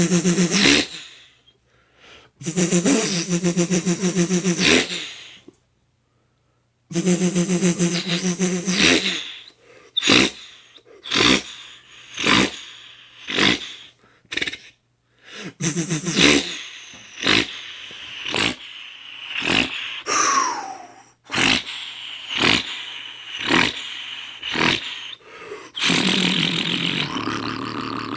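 Mouth-made imitation of a straight-piped Duramax diesel cold start. Three long buzzing stretches with short silences between, then a run of short rhythmic puffs about one a second, a falling whine about twenty seconds in, and a steady hissing rumble near the end.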